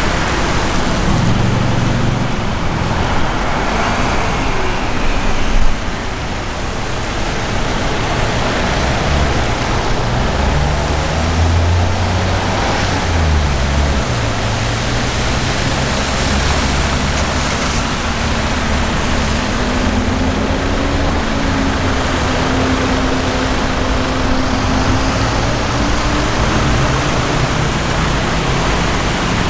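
Engines of a line of stopped police cars running, with road traffic noise under a steady hiss. There is a brief louder sound about six seconds in.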